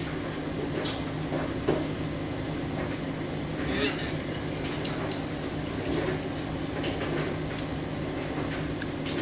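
Eating by hand: soft, scattered wet clicks and smacks of chewing fufu and of gloved fingers squeezing the dough and dipping it in soup, over a steady low hum.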